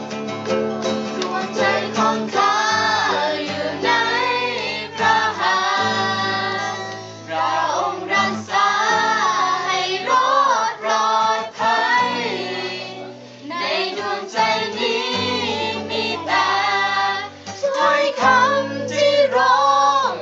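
A mixed group of young people and children singing a song together, accompanied by strummed acoustic guitars.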